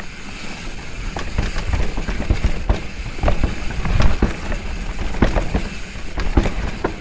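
Mountain bike rolling fast down a dirt singletrack, heard from on the bike: a steady rumble of the tyres on the dirt with irregular sharp clacks and rattles as the bike jolts over bumps.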